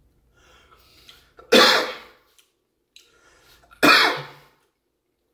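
A man coughing twice, two loud coughs a little over two seconds apart, with faint breathing before each. The spice of a ghost pepper chip is catching the back of his throat; he blames the heavy ground-pepper seasoning.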